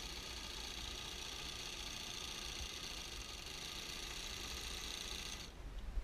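An old Pfaff 160 electric sewing machine running steadily as it stitches, then stopping abruptly about five and a half seconds in, with a single knock just after.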